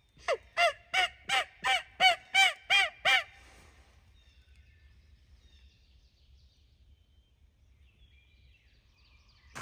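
Turkey yelping: a run of nine loud, evenly spaced yelps, about three a second, each note rising and falling in pitch. The yelps stop after about three seconds, leaving faint songbird chirps.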